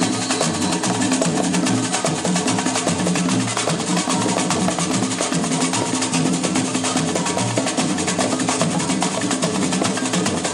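Live samba percussion: tall hand drums playing a fast, dense rhythm of low strokes, with a continuous high rattle over it.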